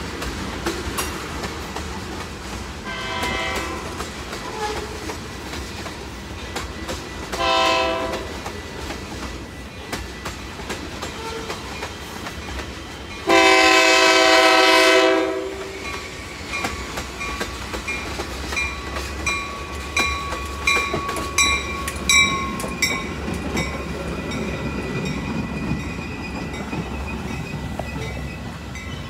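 Train horn sounded three times, two short blasts and then one long, much louder blast about 13 seconds in, from the Metra commuter train approaching on the near track. Under and after it, freight cars clatter on the other track, and in the second half there is a run of clicks from wheels over rail joints with a thin high squeal.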